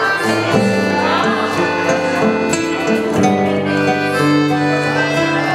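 Instrumental passage of gaúcho-style folk music played live on piano accordion, nylon-string acoustic guitar and cajón. The accordion carries the tune in held notes over the guitar's strumming and a steady cajón beat.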